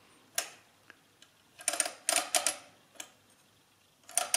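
Summira 7 slide adding machine being worked by hand: a finger pulls the digit slides down one column after another. Each pull gives a short run of quick mechanical clicks, with several pulls spread through the few seconds.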